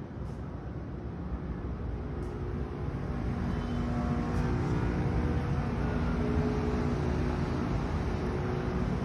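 Distant city traffic, a steady hum heard from a high-floor balcony, growing louder over the first few seconds and then holding.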